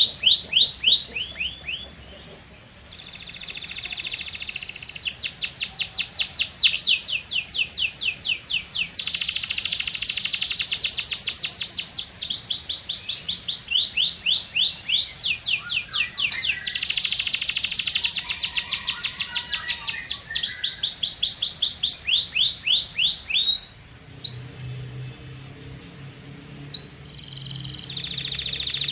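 Canary singing a long song of trills, each a fast run of quickly repeated high notes, changing from one trill to the next, with brief pauses about two seconds in and again near the end.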